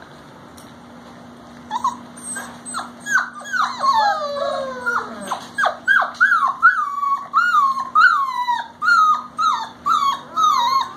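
A four-week-old puppy whining and crying in high-pitched cries that slide down in pitch, starting about two seconds in and coming about twice a second by the end.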